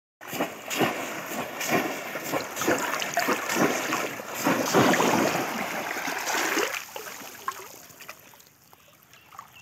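Shallow water splashing hard as bamboo cone fish traps are plunged into it again and again, about once a second, dying down after about seven seconds.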